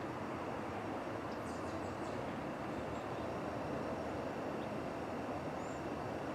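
Steady low rumbling noise of the Pan Am Railways office car special train, with a few faint high bird chirps about a second and a half in.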